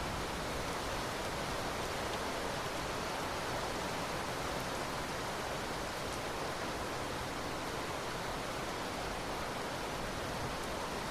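Rain falling steadily, an even hiss without change.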